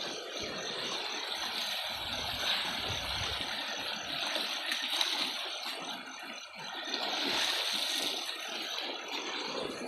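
Water splashing and gurgling in a continuous wash that swells and eases.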